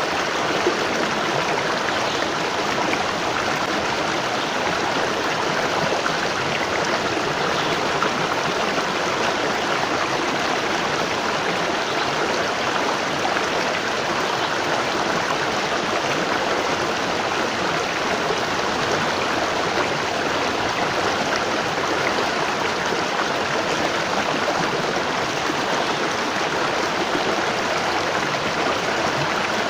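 Waterfall splashing and rushing steadily, an even, unbroken roar of falling water.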